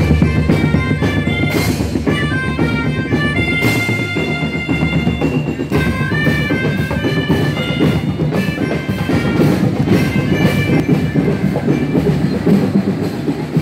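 A children's marching drum band playing: a melody of short notes on melodicas and glockenspiels over a steady beat of snare and bass drums.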